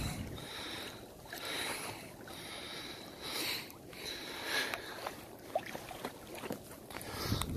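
Water lapping and splashing against a moving kayak's hull, with the kayaker's hard, panicked breathing swelling roughly once a second.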